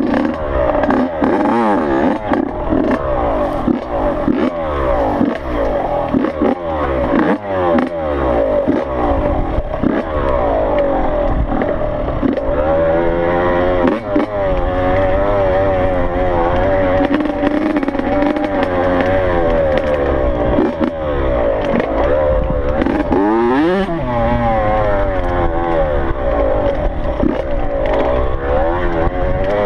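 Yamaha YZ85 two-stroke dirt bike engine being ridden, its pitch rising and falling over and over with the throttle. Scattered knocks and rattles come from the bike jolting over the rough trail.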